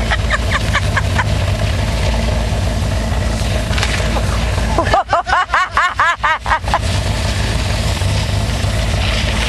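Range Rover's V8 engine running steadily at low speed, with road and wind noise. About five seconds in it is broken by a two-second burst of rapid rising-and-falling voice sounds; brief voice sounds also come at the start.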